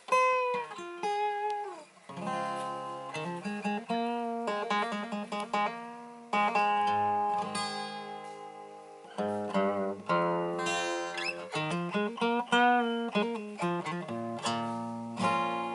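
Acoustic guitar being picked, a slow run of single notes and chords ringing out, with a few notes bent in pitch near the start.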